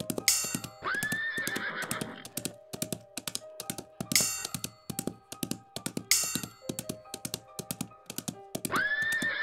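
Horse hooves clip-clopping, with a horse whinnying twice, about a second in and again near the end, over background music.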